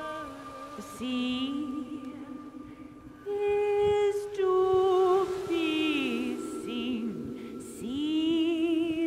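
Wordless female singing: long held notes with wide vibrato that slide slowly between pitches, growing louder about a third of the way in, over a steady held tone.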